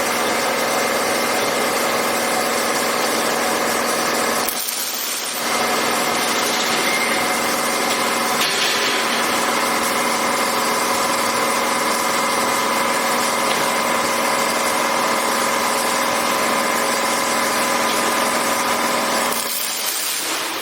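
Rebar cage welding machine running with a steady, loud mechanical hum of several held tones. It drops out briefly about four and a half seconds in and again near the end.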